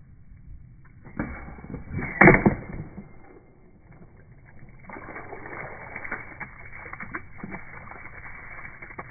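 A water-filled plastic bowl is struck by a nail from an electromagnetic coil gun. There is a loud hit and splash about two seconds in, then water splashing and running out through the hole.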